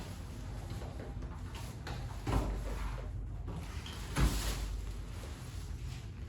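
Two dull knocks about two seconds apart, the second a little louder, from a new fridge's doors and drawers being handled, over a low steady hum.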